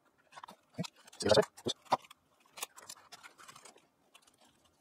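Irregular light clicks, taps and scratches of stainless steel picture-hanging wire and small aluminum crimps being handled and slid together against the hardboard back of a frame. The loudest cluster of knocks comes a little over a second in.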